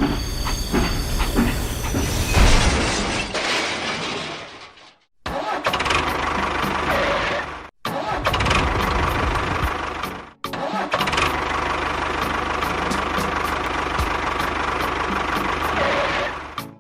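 A small machine's motor running with a steady mechanical noise and low pulsing. It is cut into four short clips by abrupt silences.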